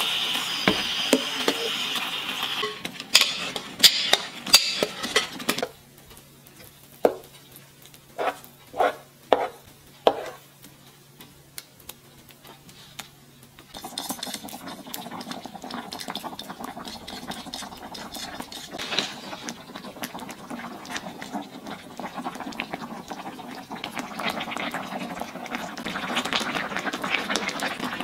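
Wooden spoon stirring a chunky tomato sauce in a frying pan, with a handful of separate knocks of the spoon against the pan about a third of the way in. After a quieter pause, the sauce cooks with a steady bubbling noise that grows a little louder near the end.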